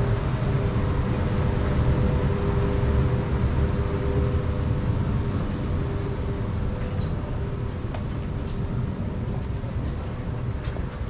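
Steady low mechanical rumble with a constant hum running through it, swelling slightly a couple of seconds in and easing off toward the end.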